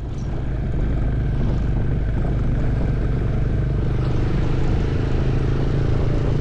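Motorcycle engine running at a steady speed while riding, a constant drone with road and wind noise, growing a little louder over the first second.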